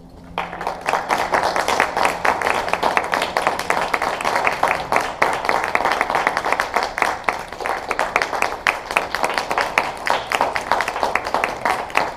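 Small audience applauding, many hands clapping at once, starting about half a second in as the last notes of a harp ensemble die away.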